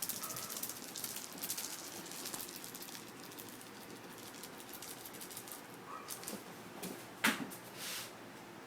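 A small cat toy rattling and clattering as a kitten plays with it, with a fast run of rattling clicks over the first few seconds. A single sharp click or knock stands out about seven seconds in.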